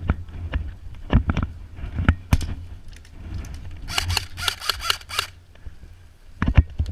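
Airsoft guns firing: scattered single shots, then a quick string of about six shots around four seconds in, over a low rumble of movement against the microphone.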